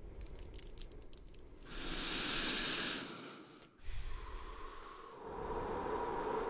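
A drag on a cigarette: the burning tip crackles in fine clicks, then a long hissing breath in, and just before four seconds in the smoke is blown out with a sudden rush of breath.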